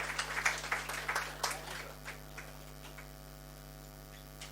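Scattered applause that fades out after about two seconds, leaving a steady mains hum with a few faint clicks.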